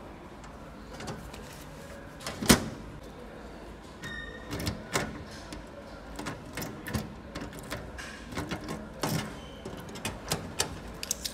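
A metal locker door shut with one loud bang about two and a half seconds in, followed by a run of small clicks and rattles as a key is turned in the locker's lock and pulled out, its keyring clinking.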